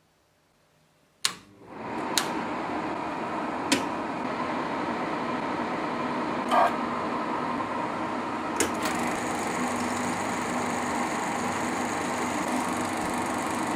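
Fumeo film projector starting up: a click about a second in, then the steady whir of its motor and of the film running through the sprockets. Several sharp switch clicks follow as controls such as the lamp are switched on.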